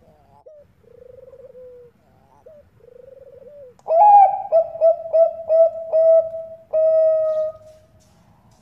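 Zebra dove (Thai-bred perkutut bangkok) cooing: two soft rolling coos, then about four seconds in a loud song of about seven quick clipped coos ending in one long held note.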